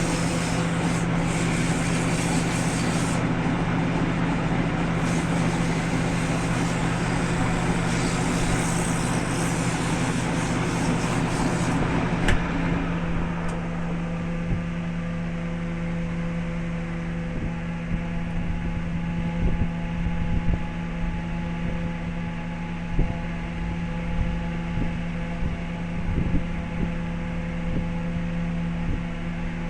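Wood lathe running with a steady motor hum. For about the first twelve seconds a rough, hissing cutting noise sits over the hum, then drops away, leaving the hum with scattered light knocks.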